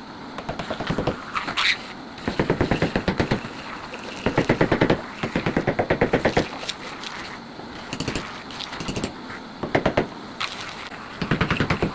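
A hand tool working wood in repeated strokes of about a second each. Each stroke is a rapid run of ticks, like a rasp or saw teeth biting the wood.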